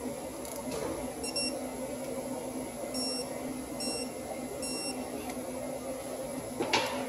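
A digital torque wrench tightening a caliper bolt gives several short, high beeps, roughly a second apart, which signal that the set torque has been reached. Near the end there is a sharp clunk.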